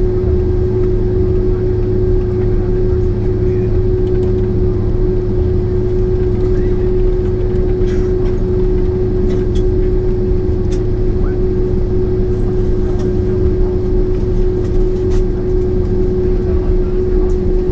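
Cabin noise inside a Boeing 767-400ER with its engines at idle ahead of takeoff: a steady low rumble with a steady mid-pitched hum over it, not changing in pitch or loudness.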